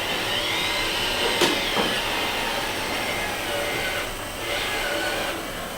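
Whine of a remote-controlled model construction machine's small electric motor, rising and falling in pitch as it works, over a steady hiss, with a sharp click about a second and a half in.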